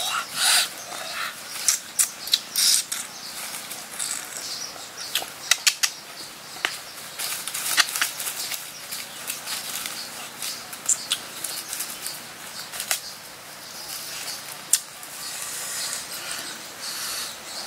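Rustling and crackling of leaves and food being handled by hand, with many sharp crackles and clicks at irregular intervals.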